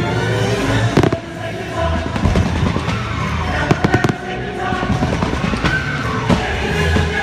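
Fireworks bursting with sharp bangs: one about a second in, a couple more shortly after, a quick cluster around four seconds in and another near the end. The bangs sound over the show's loud music soundtrack.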